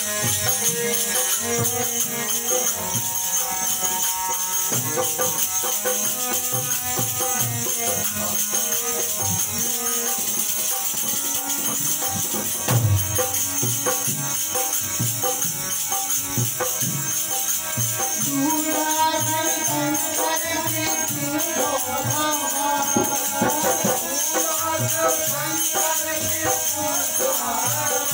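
Bundeli folk song played on harmonium and dholak, with wooden jingle clappers shaken in a steady rhythm. A man's singing voice joins about two-thirds of the way through.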